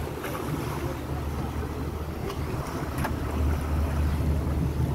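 Pilot boat's engine running with a steady low rumble that grows louder as the boat draws close, over water wash and some wind on the microphone.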